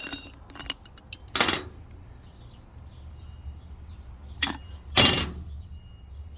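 Product packaging being pulled open and handled: a few short ripping, crinkling bursts, one about a second and a half in and two close together near five seconds, with small clicks between.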